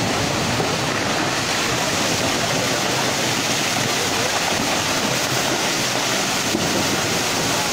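Muddy floodwater and debris from a landslide rushing down a hillside, a steady, unbroken rushing noise.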